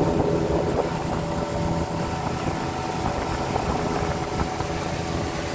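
Outboard motor running steadily, a continuous engine hum with a low rumble, pushing a small aluminium fishing boat along.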